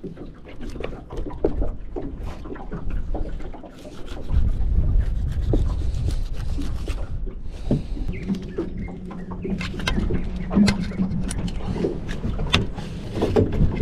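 Knife cutting a fish into chunks on a plastic cutting board: an uneven run of knocks and clicks, with a low rumble underneath from about four seconds in and a steady low hum for a few seconds past the middle.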